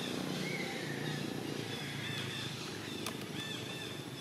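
Outdoor ambience: a steady low murmur, with a few short rising-and-falling calls and a single sharp click about three seconds in.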